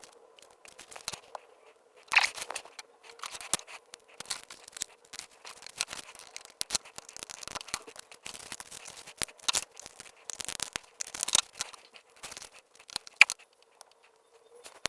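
Small polystyrene model-kit parts being handled and pushed together: irregular sharp clicks and short scratchy scrapes of hard plastic, over a faint steady hum.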